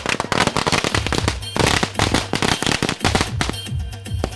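A string of firecrackers going off in a rapid, dense run of sharp cracks, thinning out near the end.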